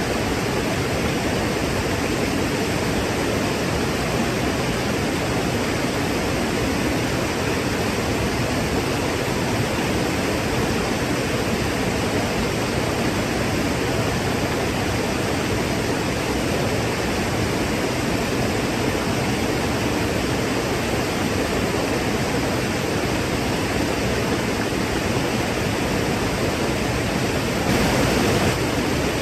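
Waterfall: water falling in a steady, even rush that swells slightly for about a second near the end.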